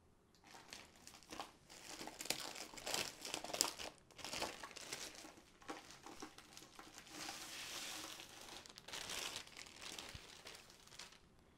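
Plastic packaging sleeve crinkling and rustling in irregular bursts as it is pulled off a rolled canvas.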